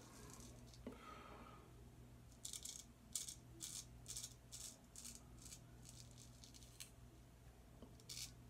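W.H. Morley & Sons straight razor scraping through lathered stubble in short, faint strokes, about two a second, starting about two and a half seconds in.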